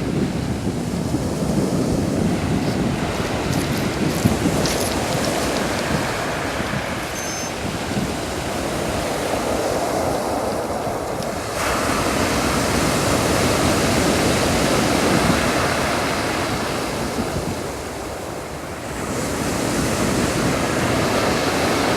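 Sea waves washing onto the shore: a steady rushing wash that swells and eases, turning suddenly brighter and fuller about halfway through, with some wind on the microphone.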